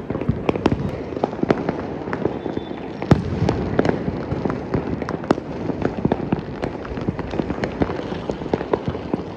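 Many firecrackers and aerial fireworks going off at once: a dense run of sharp bangs and crackles at uneven intervals, with one louder bang about three seconds in.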